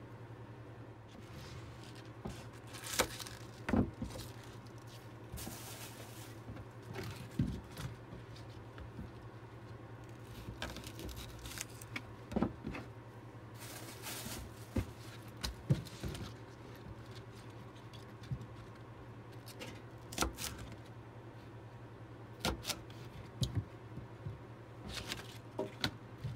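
Chef's knife knocking on a plastic cutting board and vegetables being handled: scattered single taps and knocks every second or few, with a couple of short rustles, over a steady low hum.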